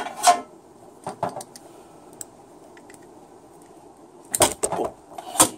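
Small metallic clicks and knocks of a brass solenoid test fixture being handled as an automatic-transmission on-off shift solenoid is fitted and tightened into it. A few clicks at the start, a pair about a second in, and a louder cluster of knocks from about four to five and a half seconds in.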